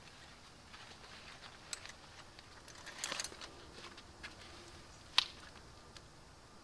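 Faint scattered clicks and taps of hands handling tools, with a short cluster about three seconds in and one sharp click a little after five seconds.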